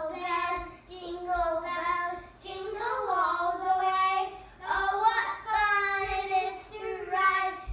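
Young children singing a carol, voices moving through a simple tune in held notes.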